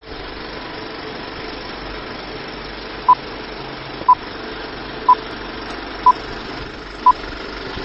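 Film countdown leader sound effect: a steady whirr and hiss like a running film projector, with a short high beep on each count, five beeps one second apart starting about three seconds in.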